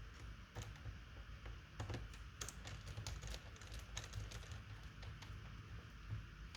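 Keys clicking on a laptop keyboard in an irregular run of keystrokes, thickest in the middle.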